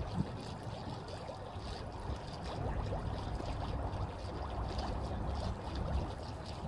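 Water trickling and splashing steadily, a fine crackle of small drips over a low rumble.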